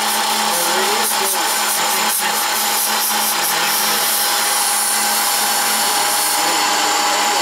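Wells Index CNC milling machine cutting a diagonal groove into a wooden board with an end mill: the spindle runs with a steady whine over a hiss of cutting noise. A rapid high pulsing stops about halfway through.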